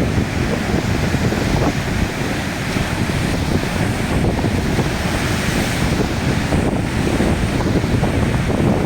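Strong wind buffeting the microphone over the continuous rush of heavy surf.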